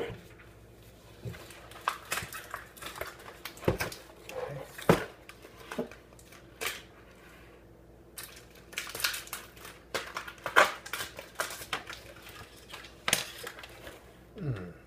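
Plastic toy packaging being handled and pulled open by hand: irregular crackles, crinkles and light clicks, with quieter rustling between them.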